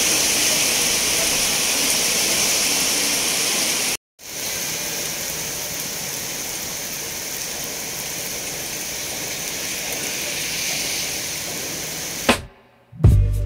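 Heavy rain pouring down as a steady hiss. It cuts off abruptly about four seconds in and resumes a moment later. Near the end there is a sharp click, a brief silence, and music starts.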